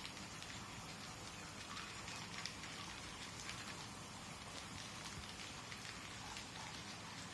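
Faint crinkling and crackling of a plastic courier mailer bag being handled: a steady light hiss dotted with many small irregular clicks.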